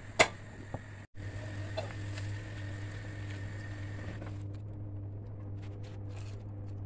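Instant noodles boiling in a pot on a gas stove, with a steady low hum. A plastic slotted spoon knocks sharply against the pot once near the start, and light clicks follow later as the noodles are scooped out into a glass dish.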